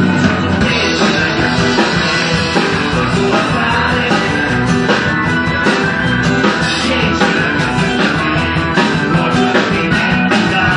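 Live rock band playing with drum kit, bass, electric guitar and keyboards.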